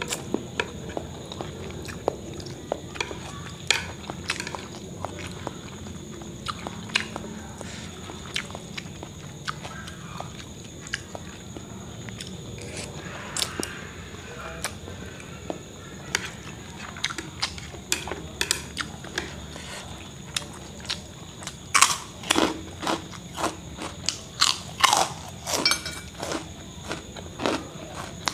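A person eating chicken noodles with chopsticks: chewing and slurping noodles, with small clicks from the chopsticks on the plate. The noises grow louder and come thicker near the end.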